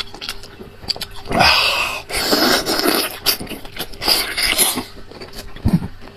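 Close-miked wet eating sounds from a person biting and sucking braised meat off a beef leg bone. Small smacking clicks run throughout, broken by three loud slurps, each under a second long.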